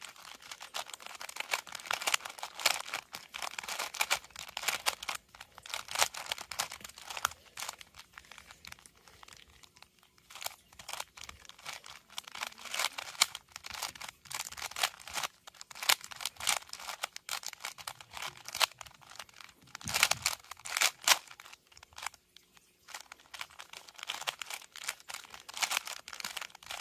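3x3 Rubik's Cube being turned quickly by hand during a solve. Its plastic layers give a fast, irregular run of clicks and rattles, broken by a few short pauses.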